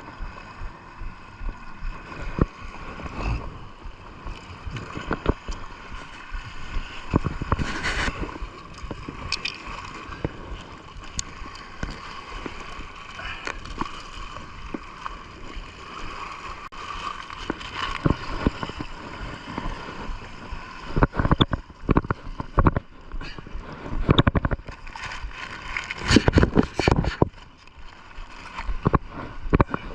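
Underwater sound around a diver's camera: bubbling and sloshing water with irregular clicks and knocks over a steady hum. Louder clusters of knocks and splashes come about two-thirds of the way through.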